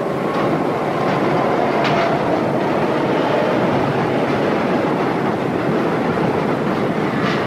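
Elevated subway train running along its tracks: a steady, loud rush of wheels on rail with a faint high tone running through it, and a brief higher screech about two seconds in and again near the end.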